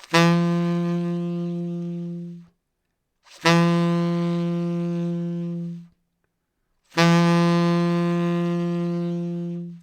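Tenor saxophone playing the same long note, sol (G), three times as forte-piano: each note is attacked strongly and then fades steadily over about two and a half seconds before it stops, with a short gap between notes.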